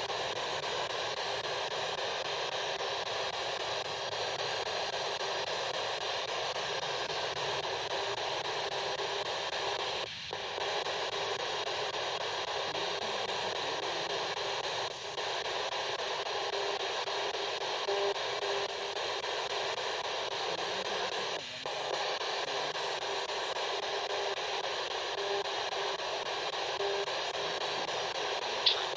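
Steady radio static hiss from a ghost-hunting spirit box, briefly dropping out three times.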